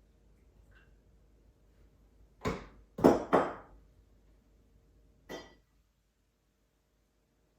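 Tableware being handled: four sharp clinks and knocks, three close together about two and a half to three and a half seconds in and a lighter one near the middle, the last with a short ring.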